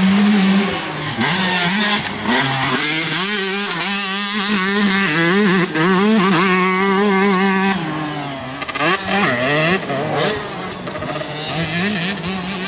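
Motocross dirt bike engines revving as the riders race, the engine pitch repeatedly rising and falling with the throttle.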